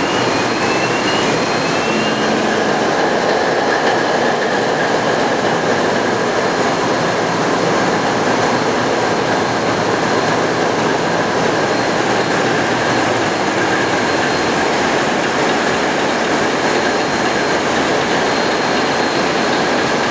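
ABC eight-cylinder marine diesel engines running in a tugboat's engine room: a loud, steady mechanical din that holds an even speed throughout.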